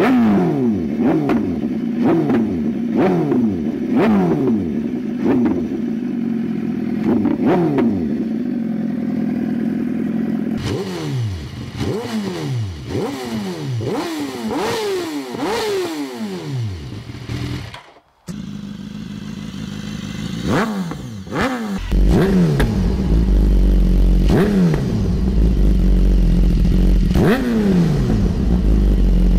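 BMW S1000RR inline-four engine on a stand, revved in quick repeated throttle blips about once a second, each falling back toward idle, through aftermarket exhausts. Midway through, the sound switches to the bike with an Akrapovic exhaust. Near the end, the bike with an Austin Racing exhaust takes over, with a heavier deep rumble under the revs.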